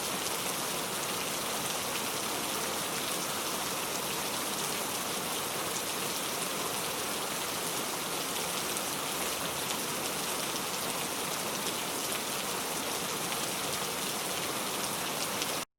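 Heavy rain falling hard in a steady, dense hiss of drops, cutting off abruptly near the end.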